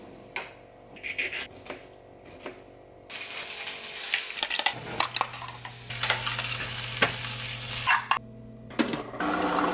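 A few clicks and taps, then eggs and vegetables sizzling in a frying pan while a utensil stirs and scrapes them. The sizzle stops abruptly about eight seconds in.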